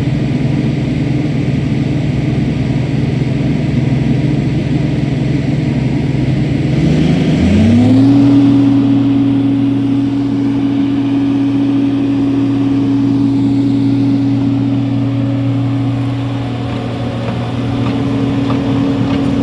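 Heavy diesel engine of a road milling machine running steadily, then revving up about seven seconds in and holding at the higher engine speed.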